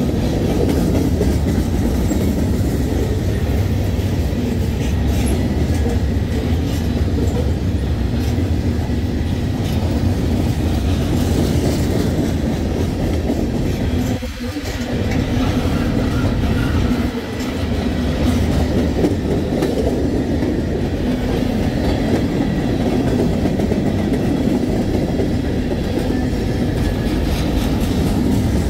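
Amtrak train running steadily along the track: a continuous rumble of wheels on rails, with two brief dips in the noise about halfway through.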